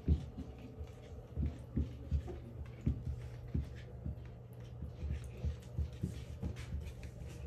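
Greek tortoises plodding on a hard floor, a male trailing close behind a female: dull low thuds about once or twice a second, with faint claw scratches and a steady hum underneath.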